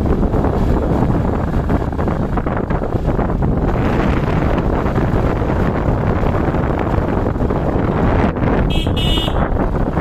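Steady wind buffeting on the microphone over vehicle engine and road noise while driving, with a vehicle horn giving two short beeps near the end.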